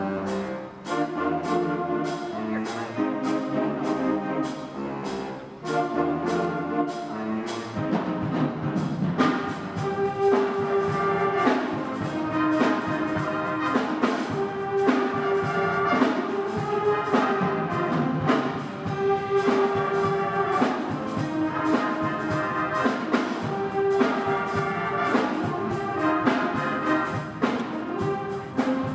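An eighth-grade school ensemble playing live, brass to the fore over a steady beat of percussion strokes. About eight seconds in, the full ensemble comes in and the music grows fuller and louder.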